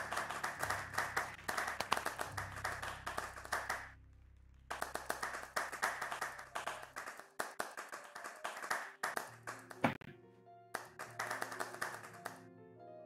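Audience clapping over background music. The clapping stops briefly about four seconds in, then thins out after about seven seconds to scattered claps, with the music carrying on.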